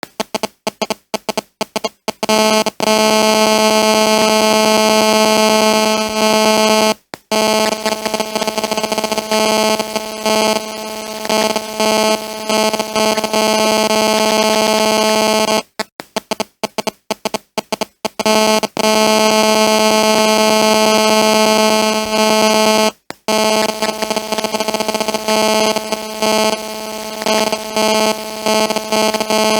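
Cell phone interference: the pulsing electronic buzz a GSM mobile phone's radio signal induces in nearby audio equipment. It opens with a rapid stutter of short bursts, then runs as a steady buzz. It breaks into stutters and brief dropouts a few more times, the longest burst of stutter coming about halfway through.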